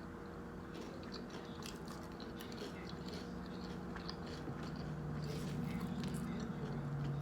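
Close-miked chewing of a grinder salad sandwich: soft crunching with small wet clicks of the mouth. A low steady hum comes in about three seconds in.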